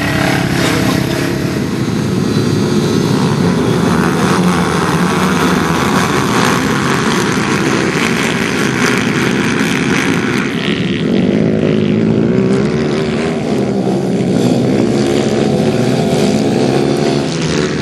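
Pit bike engine revving hard, its pitch rising and falling continuously.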